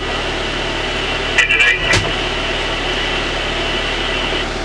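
Fire apparatus engine idling steadily, heard from inside the cab. A brief burst of a voice and a sharp click come about a second and a half to two seconds in.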